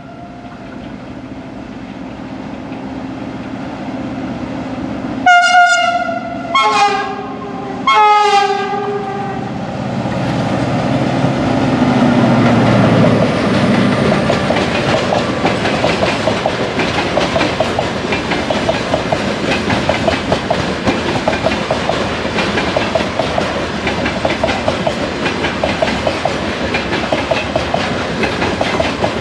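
ER20 diesel locomotive sounding its horn three times, two short blasts then a longer one, the later two in two tones, then its engine running loud as it passes close. A long train of hopper wagons follows, wheels clicking steadily over the rails.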